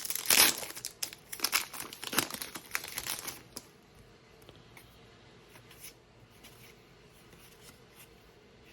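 Plastic wrapper of a football trading-card pack being torn open and crinkled, a run of crackling for about three and a half seconds that then drops to faint handling noise.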